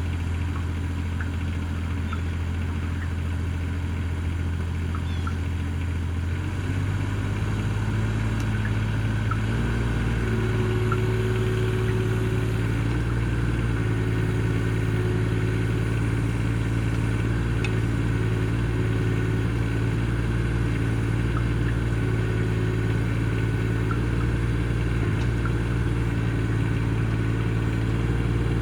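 Mini excavator engine running steadily; about seven seconds in its speed and level step up, and it carries on running harder.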